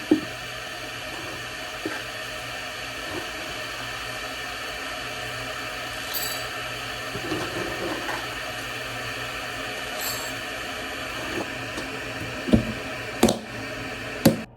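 A household appliance motor running steadily, switched on just before and cut off suddenly after about fourteen and a half seconds, with a few knocks and clicks over it, the loudest about a second before it stops.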